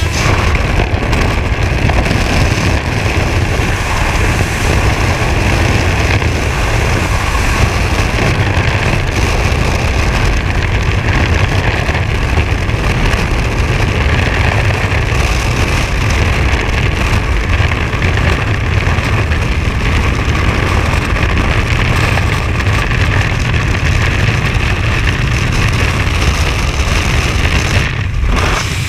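Loud, steady rush of freefall wind buffeting a skydiver's body-mounted camera microphone, heaviest in the low end.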